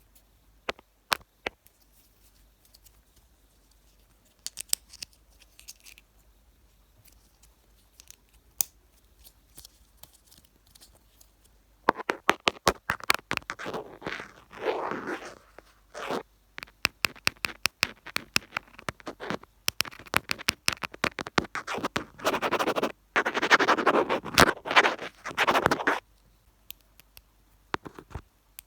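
Fingers touching a camera right at its microphone: scattered taps and clicks at first, then from a little under halfway through, a long stretch of dense scratching and rubbing that stops a few seconds before the end.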